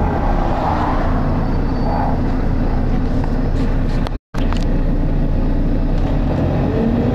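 Volvo B9TL double-decker bus's six-cylinder diesel working hard under way, heard from a passenger seat inside: a steady loud drone whose engine note climbs near the end as the bus pulls harder. The sound cuts out completely for an instant about four seconds in.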